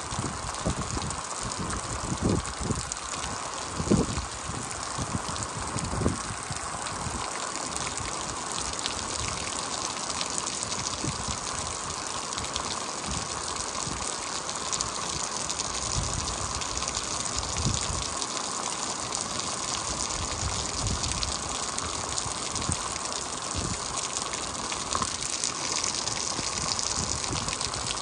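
Heavy rain pouring steadily, a dense even hiss of falling water, with scattered low thuds, the sharpest in the first six seconds.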